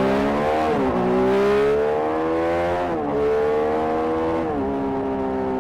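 A Triumph Street Triple RS's 765 cc inline-three engine, fitted with an SC Project S1 exhaust, accelerating under way. The pitch climbs and drops sharply at three upshifts, then eases off slowly near the end.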